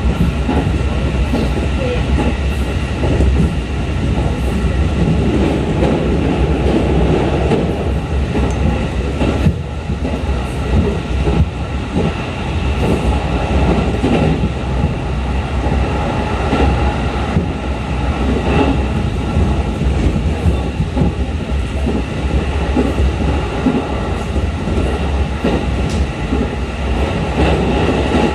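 Running noise inside the passenger car of a JR 211 series electric multiple unit at speed: a steady low rumble of wheels and motors with a faint steady whine above it and scattered clicks from the rails.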